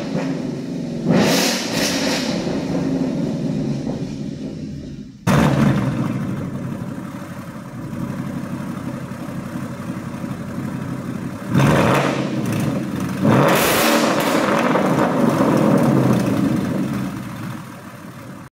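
Ford Mustang GT's 5.0-litre V8 through an Armytrix valvetronic cat-back exhaust with the valves open, revved up from idle and let fall back several times.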